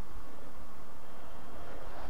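Steady outdoor background with a low rumble and faint hiss, and no distinct event.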